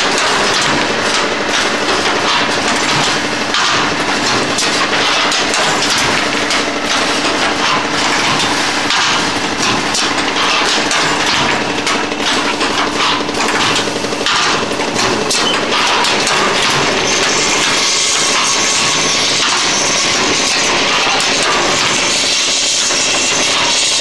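Automatic thermocouple paper-tube assembling machine running: a steady hum under continuous rapid rattling and clacking from its chain conveyor and the paper tubes it carries. A high hiss grows stronger over the last several seconds.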